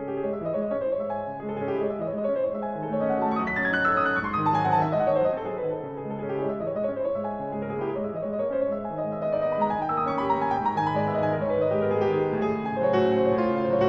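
Steinway grand piano played solo: fast running passages, with quick downward runs sweeping from the high treble into the middle register.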